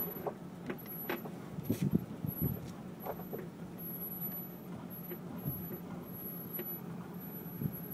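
Land Rover Discovery 2 engine running low and steady, heard from inside the cab, with a scattering of light knocks and clicks in the first few seconds.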